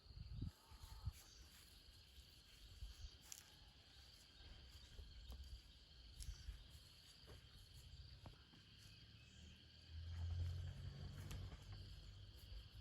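Faint, steady chirring of insects, with scattered soft clicks and low thuds, and a brief low rumble about ten seconds in.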